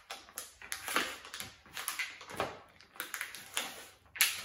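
Plastic packaging of sliced provolone cheese being opened and handled: irregular crinkling and crackling, with a louder crackle near the end.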